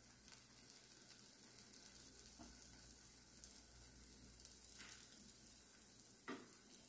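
Faint sizzling of a garlic-buttered bread slice toasting butter-side down on a flat griddle pan, with a few soft ticks.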